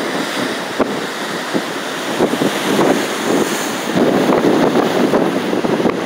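Strong gusting wind buffeting the phone's microphone with crackles, over the rush of heavy surf breaking below.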